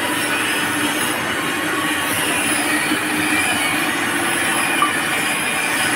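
Palm oil press machine running: a steady, even mechanical noise from its gear drive with a low steady hum through it, and one brief click near the end.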